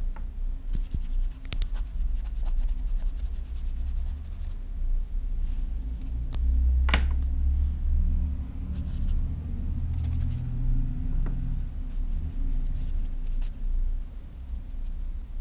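Watercolor brush scrubbing and rubbing on paper, faint scratching strokes, under a steady low rumble. A few light ticks, the clearest about halfway through.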